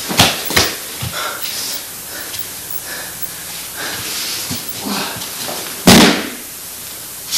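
Aikido practice: a few sharp slaps and thuds of bodies and hands during throws and falls on the mat, the loudest a heavy thud about six seconds in.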